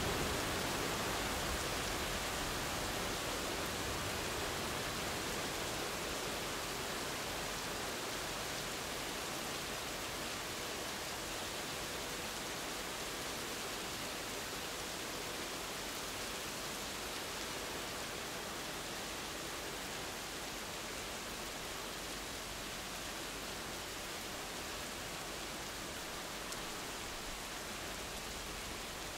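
Steady rain falling, an even hiss that slowly eases a little in level.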